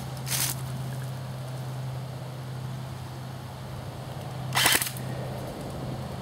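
Airsoft gun firing two single shots of .20 g BBs through a shooting chronograph, about four seconds apart, the second one louder, over a steady low hum.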